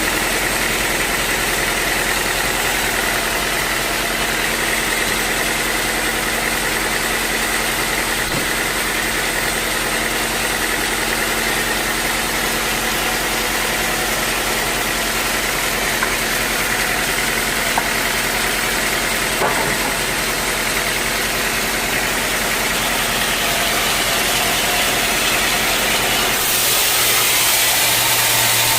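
Sawmill machinery running steadily, a dense mechanical noise with a constant hum. A few faint ticks come in the middle, and about 26 seconds in the sound shifts, with a new low hum coming in.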